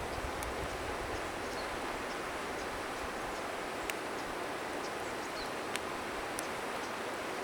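Wood bonfire crackling with a few sharp, scattered pops over the steady rush of river water, with some wind buffeting the microphone in the first few seconds.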